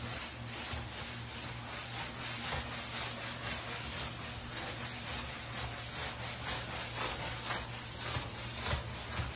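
Scrubbing of a wet wooden floor: repeated rubbing strokes, over a steady low hum.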